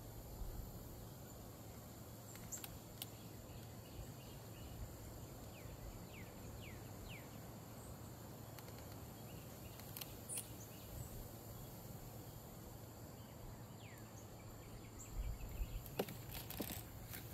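Faint outdoor garden ambience: a steady low background hum with a few short, falling bird chirps scattered through, and a cluster of knocks and bumps near the end.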